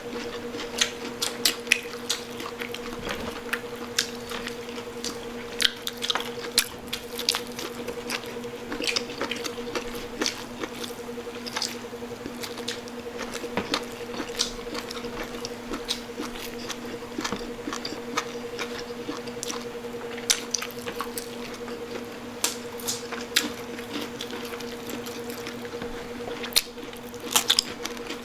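Close-miked eating sounds: irregular wet chewing and mouth clicks from people eating crispy pata (pork knuckle) with rice, over a steady low electrical-sounding hum.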